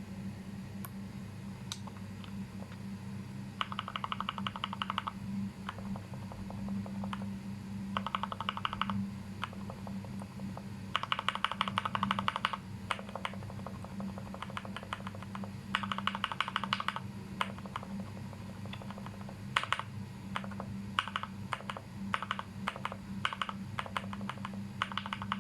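Mechanical keyboard with lubed Gateron linear switches being typed on: several quick bursts of rapid keystrokes, then single, spaced keystrokes in the last few seconds.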